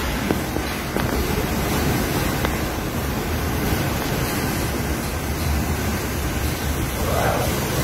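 Howling typhoon wind gusting through palm trees, with the gusts buffeting the phone's microphone in a deep rumble. A stronger gust swells up about seven seconds in.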